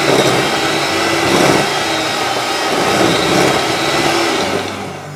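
Electric hand mixer running, its beaters creaming butter and sugar in a glass bowl: a steady motor whine with the churning of the beaters, fading out near the end.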